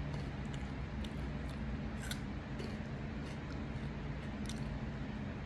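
Hot Cheetos being chewed close to the microphone: short crunchy clicks, about two a second, over a steady low hum.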